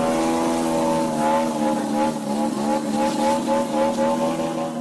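Engine and propeller of an AJ Slick aerobatic RC plane running steadily while it hangs nose-up on its prop, the pitch wavering slightly.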